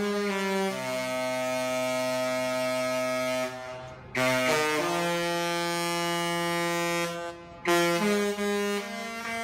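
Background music: a wind-instrument melody of long, held notes in phrases, fading out near the end.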